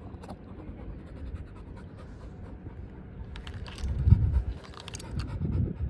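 A large dog panting, louder about four seconds in and again near the end, with a few faint scratchy ticks.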